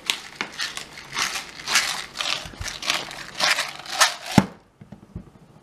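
Hand-twisted black pepper grinder grinding peppercorns, a run of gritty crunching grinds about three a second. The grinding stops a little over four seconds in with a single sharp knock.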